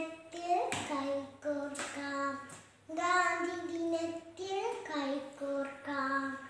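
A young girl singing unaccompanied, holding long steady notes in short phrases with a brief breath break about three seconds in.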